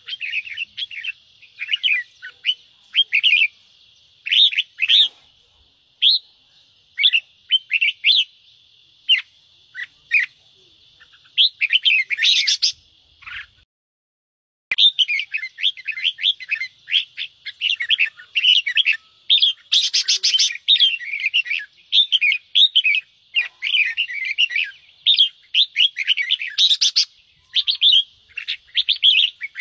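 Red-whiskered bulbuls giving a dense run of quick, chattering calls and short song notes. The calls break off for about a second midway, then resume busier.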